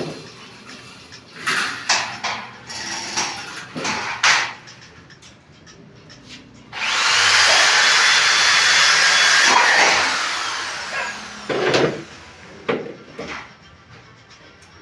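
A power tool runs steadily for about three seconds near the middle, with a faint high whine, then winds down. Scattered knocks and clatter come before and after it.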